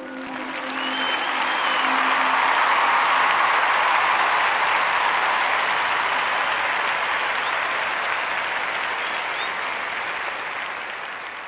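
Audience applauding at the end of a live performance, swelling over the first couple of seconds and slowly dying away near the end.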